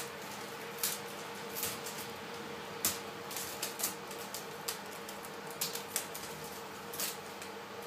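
Irregular small clicks and ticks as the plastic backlight separator sheet is picked at and torn away from the keyboard's metal base inside a MacBook Pro Unibody top case. About a dozen sharp ticks come at uneven intervals over a faint steady hum.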